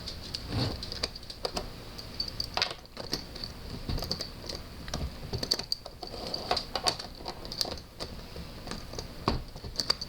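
Irregular light clicks and taps of small hard parts being handled, with a faint steady high whine underneath.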